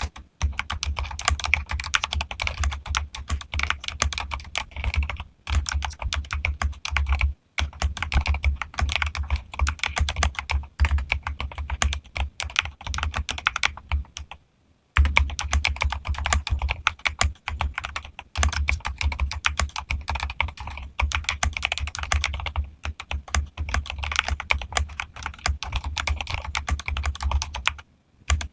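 Mechanical keyboard being typed on quickly and continuously, with a few short pauses.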